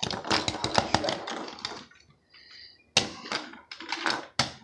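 Hard plastic toy dinosaurs knocking and clattering against each other and the table, with handling noise. There is a quick run of clicks and taps for the first couple of seconds, then a few separate knocks near the end.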